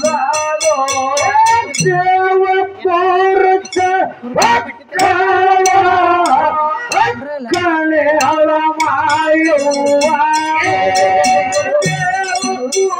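A woman singing a Kannada dollina pada folk song into a microphone, accompanied by small brass hand cymbals (taala) struck in a steady rhythm.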